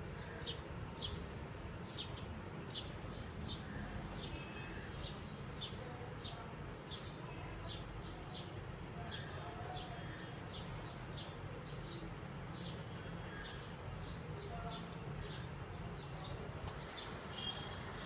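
Bulbul calling: a steady series of short, sharp, high chirps, about two a second, over a low steady background hum.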